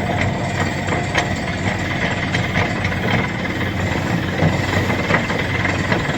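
An engine running steadily, a constant drone with a faint high whine above it.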